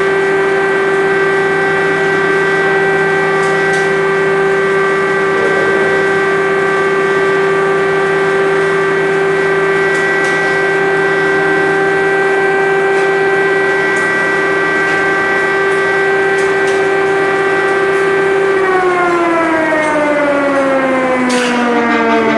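Air-raid siren sounding a loud, long steady tone, its pitch starting to fall about three quarters of the way through as it begins to wind down.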